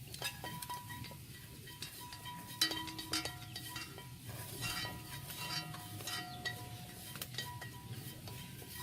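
Dishes and cutlery clinking: scattered light clicks, some leaving short ringing tones, over a steady low hum.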